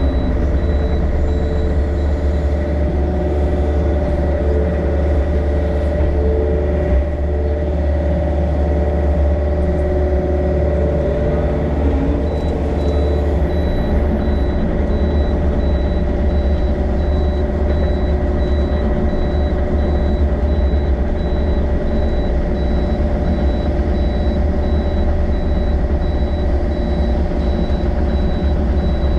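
Yanmar excavator's diesel engine running steadily at working speed as the machine grades dirt, with a constant low hum and steady whining tones over it.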